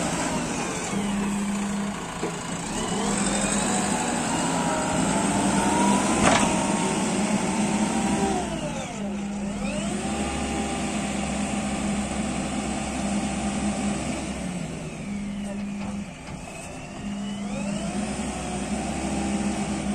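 Diesel engine of a JCB 3DX backhoe loader running under load as the machine drives and levels soil, its pitch rising and falling with the throttle and dipping sharply twice before picking up again. There is one sharp metallic knock about six seconds in.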